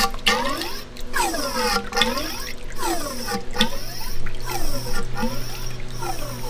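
Showa fork damper rod being pumped up and down by hand to drain the old fork oil, a wet sucking sound once a second whose pitch drops and then rises again with each stroke.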